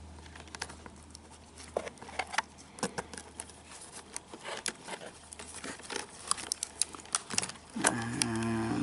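Small scattered clicks and taps of a micro screwdriver and wire ends against the plastic push-in terminal block of a vacuum's control board as the motor wires are released. A brief steady low humming tone comes near the end.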